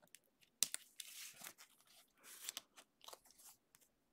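A trading card being slid into a rigid plastic top loader and handled: faint scattered clicks and short scrapes of card stock and plastic.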